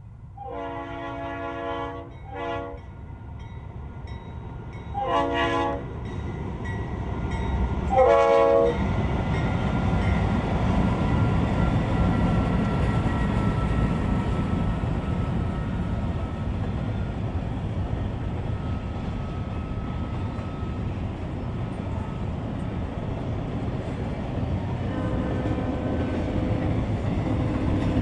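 BNSF diesel freight locomotives sounding their air horn four times in the first nine seconds as they approach and pass, then the steady rumble of a long double-stack container train rolling by on the rails.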